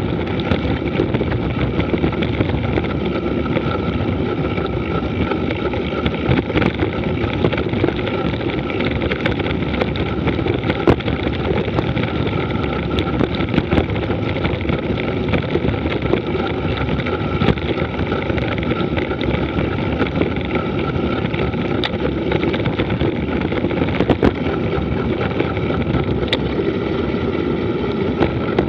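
Mountain bike descending a rough dirt and gravel road: steady rush of wind on the microphone over the rumble and rattle of tyres on loose ground, with a few sharp knocks from bumps.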